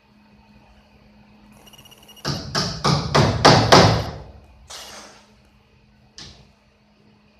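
A quick run of about six loud knocks or thumps, roughly three a second, then two single knocks, the last one sharp.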